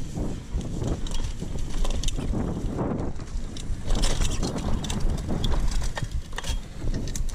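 Mountain bike ridden along a dirt trail: a steady rumble from the tyres and air buffeting the camera microphone, with the chain and frame rattling in quick irregular clicks over bumps, busiest around the middle.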